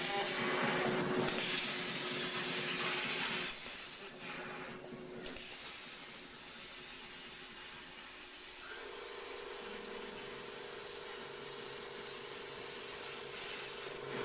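CNC plasma cutting torch hissing steadily as it cuts steel. The hiss thins out about three and a half seconds in, and a faint steady hum joins it from about nine seconds in.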